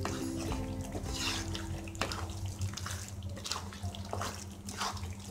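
Wooden spatula stirring thick paneer masala gravy in a kadai, working in the butter just added. It makes a series of wet stirring strokes, roughly one a second.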